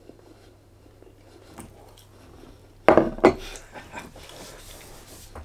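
A white serving bowl of chips set down on a table: two sharp clunks of the dish about three seconds in, with a few faint ticks around them.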